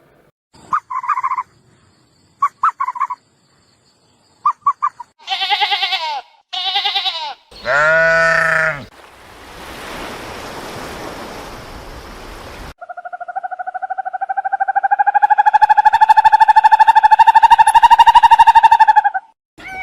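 A run of different animal calls one after another: short pulsed chirps in three groups, then three quavering pitched calls, a few seconds of noisy hiss, and one long buzzing call that grows louder near the end.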